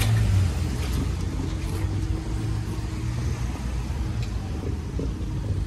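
Road vehicle engine running as it drives past, a low rumble that slowly fades.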